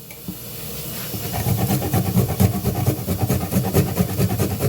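Fresh ginger root being grated by hand on a kitchen grater: quick repeated scraping strokes that start about a second in and keep going.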